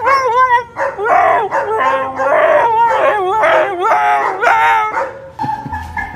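A husky howling and 'talking' in a run of loud calls whose pitch wavers up and down like a yodel, stopping a little after five seconds.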